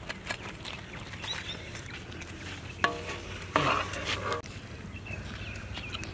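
Light clinks and rustles as pieces of roasted chicken are tipped off a metal ladle onto a banana leaf and handled. About three seconds in come two louder sounds of unclear source, a sharp one and then one lasting nearly a second.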